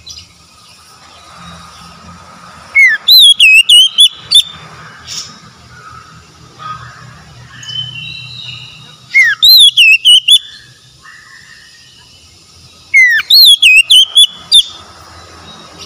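Oriental magpie-robin singing three loud phrases about six seconds apart. Each opens with a rising whistle and breaks into a quick run of sharp, ringing notes, with faint chirps in the gaps.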